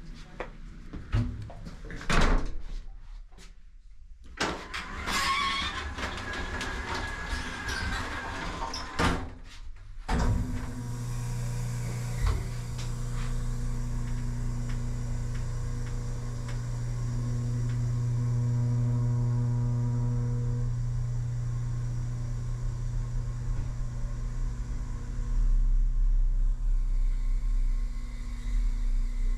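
Elevator doors sliding with clicks and a squeal, then about ten seconds in the elevator starts running with a steady low hum.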